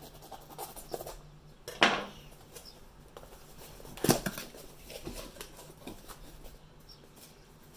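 Cardboard shipping box and its packing being handled and opened by hand: scattered clicks and rustles, with a louder rustle about two seconds in and another about four seconds in.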